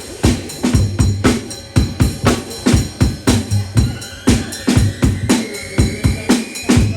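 Drum kit playing a steady beat, bass drum and snare hits, over a deep bass line; a slowly rising high synth tone comes in about four seconds in.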